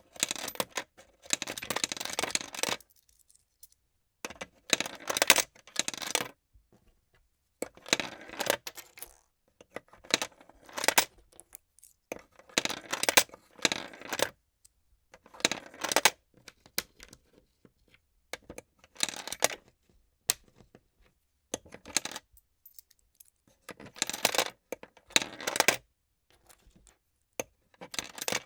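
Coins dropped one handful at a time into a plastic coin sorter, each rolling along the tray with a rattle and clinking down into a slot. The bursts come again and again with short silent gaps between them.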